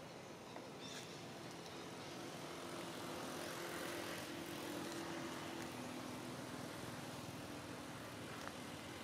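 Faint hum of a distant motor that swells about halfway through and eases off again, over steady outdoor background noise.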